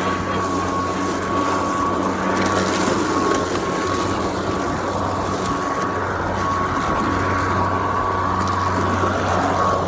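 Greenworks 80V brushless cordless lawn mower running steadily, its motor and blade giving a constant high whine over a low hum.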